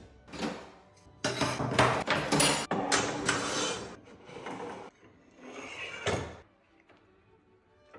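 Aluminium worktop jig parts (a Festool APS 900 rail and plates) being handled and set down on a laminate worktop: a knock, then a few seconds of metal clatter and scraping, and one more shorter bout of handling before it goes quiet.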